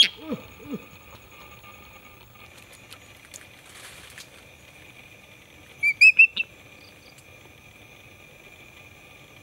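Eagle calling: a shrill whistled note right at the start, then about six seconds in a quick run of four shrill, rising piping notes. Two short, low, falling calls from another animal come in the first second.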